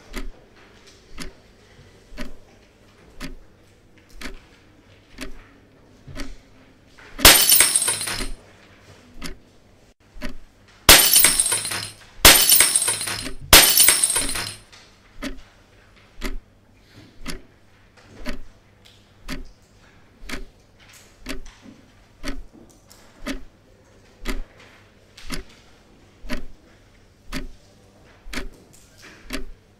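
Wall clock ticking about once a second. A paddle bat smashes its glass face: one crash of breaking glass about a quarter of the way in, then three more in quick succession near the middle. The ticking carries on through and after the blows.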